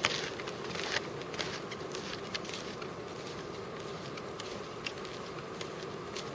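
Snowshoe steps crunching in snow, strongest about the first second and growing fainter as the walker moves away, over a steady hiss of wind.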